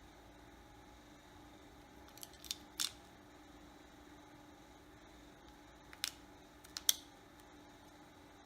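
Small sharp clicks and taps of tiny phone parts being handled and pressed into place during reassembly, a few around two to three seconds in and a few more around six to seven seconds in, over a faint steady hum.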